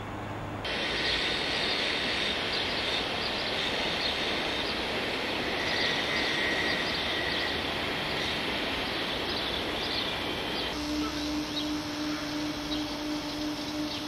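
Outdoor background noise with scattered short high chirps. The sound changes abruptly twice, and a steady low hum runs through the last few seconds.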